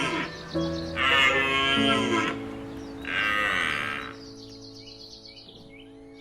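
Cattle mooing twice, each call a second or so long, over background music with long held notes; after the second moo only the music goes on, more quietly.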